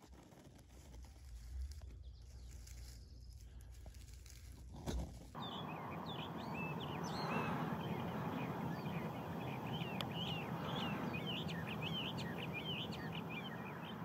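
A low rumble for about the first five seconds. Then a Bendire's thrasher sings a long, continuous song of quick, varied notes.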